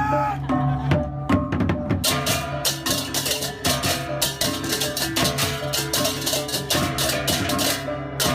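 Percussion-driven music: fast, dense strikes over sustained pitched notes, growing fuller about two seconds in.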